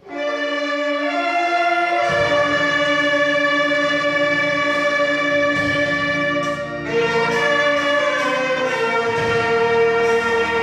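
A church orchestra begins a hymn with held chords, and the low parts come in about two seconds later.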